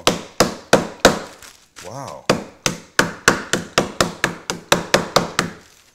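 Heath toffee bars being pounded inside a zip-top plastic bag on a wooden cutting board with a blunt tool: a run of sharp whacks on the wood, about three a second, with a short break about two seconds in.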